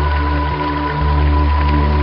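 Ambient new-age music: long sustained synth-pad notes over a steady low drone, with an even hiss of running water underneath.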